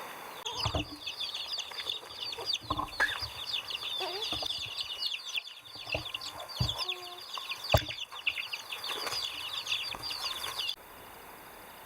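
Dense, rapid chirping of many birds, with a few knocks underneath; it cuts off abruptly near the end.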